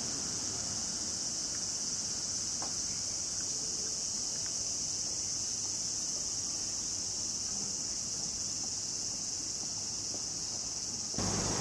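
Steady, high-pitched chorus of insects singing, an unbroken drone. Near the end a low rumble of background noise comes in.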